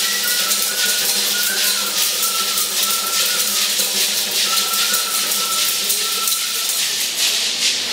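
Traditional Sonoran dance music: rattles shaken in a fast, continuous shimmer, with a thin, high, wavering melody line over a steady low drone.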